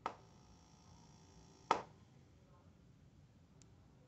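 Two sharp clicks about a second and a half apart, each followed by faint lingering ringing tones.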